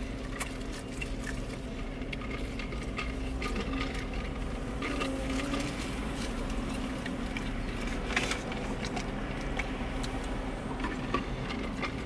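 Eating sounds: chewing, with the small clicks and rustles of chicken nuggets being dipped into plastic sauce cups, over a steady low hum.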